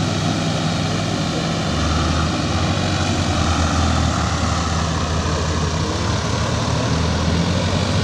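Tractor diesel engines running hard under load as they work to pull a tractor out of deep mud. The engine sound swells about two seconds in.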